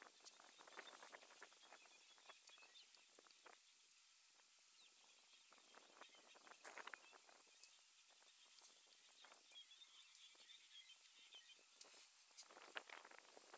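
Faint rustling and scuffing of elephants' feet shifting in dry grass and scrub, over a steady high-pitched whine.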